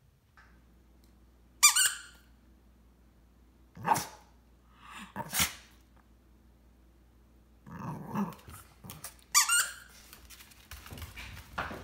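Cavalier King Charles Spaniel giving a few short, high-pitched barks. The two loudest and sharpest come about two seconds in and again a little after nine seconds, with softer bursts in between.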